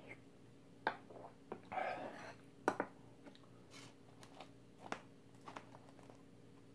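Eating sounds from a mouthful of jjamppong (spicy seafood noodle soup) taken from a spoon: a slurp and chewing. Scattered sharp clicks and taps as chopsticks pick at fried dumplings in a plastic takeout tray, over a faint steady hum.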